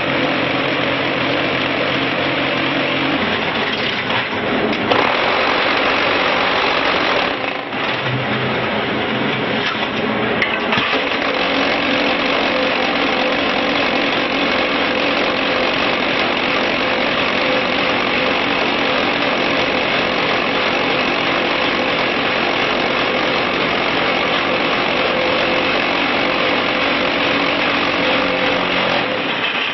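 QTJ4-25 automatic concrete block machine running: a loud, steady mechanical din with a hum running through it, dipping briefly a few seconds in.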